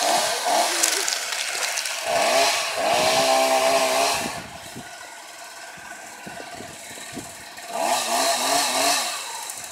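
Chainsaw revving hard for the first four seconds, dropping to a quieter idle, then revving up again near the end.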